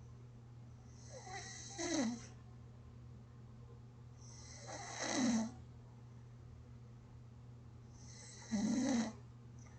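A sleeping person snoring gently, three snores spaced about three and a half seconds apart.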